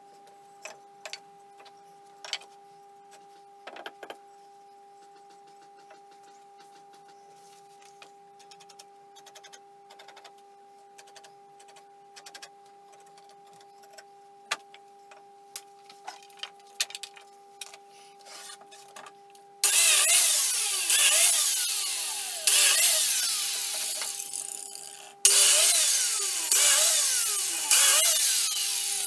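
Light taps and clicks of timber being handled over a faint steady hum. Then, about two-thirds through, a handheld biscuit jointer starts with a sudden loud whirr and cuts slots into the wood, in stretches of a few seconds that fade slightly before each sharp restart.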